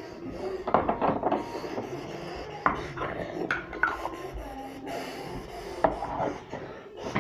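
Large plastic toy building blocks being handled, knocking and clacking together with rubbing and scraping between the knocks. A few sharper knocks come about a second in, near three seconds and near six seconds.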